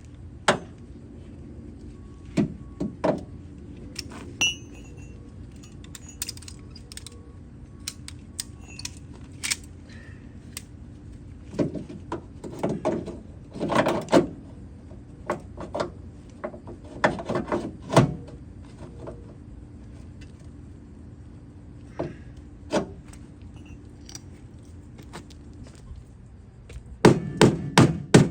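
Metalwork on a car's rear quarter panel: scattered knocks and taps on the sheet metal, then near the end a run of hammer strikes about two a second. A steady low hum runs underneath and stops shortly before the strikes begin.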